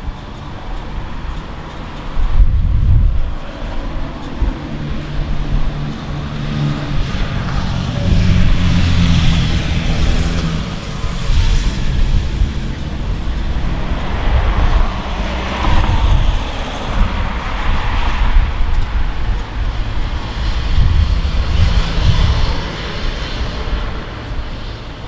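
Thunder rolling: a deep rumble that sets in suddenly about two seconds in, then swells and fades again several times.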